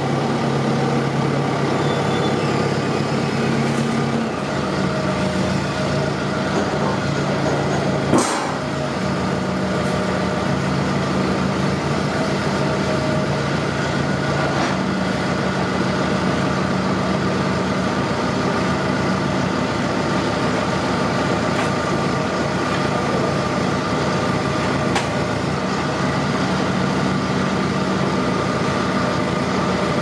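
Fendt 310 Vario tractor engine running steadily while its front loader stacks round hay bales. The engine note shifts about four seconds in, and a single sharp knock comes about eight seconds in.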